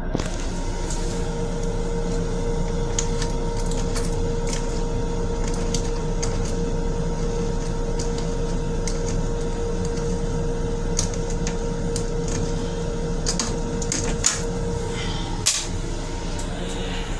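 Steady drone and hum of an M7 commuter railcar heard inside its restroom, with a steady mid-pitched tone that stops about fifteen seconds in. A few light clicks and taps sound over it.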